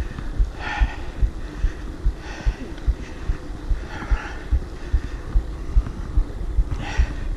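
Wind rumble and riding noise on the camera microphone of a moving mountain bike, with a regular low thudding about two to three times a second.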